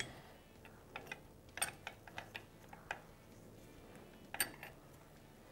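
Faint metallic clicks and clinks of a Husqvarna FC450's steel shift fork and transmission gears being handled as the fork is worked off its shaft in the open crankcase half. There are a handful of light, scattered ticks, the sharpest about four and a half seconds in.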